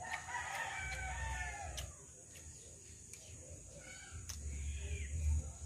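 A rooster crowing, one long call of about a second and a half at the start, with a fainter call around four seconds in.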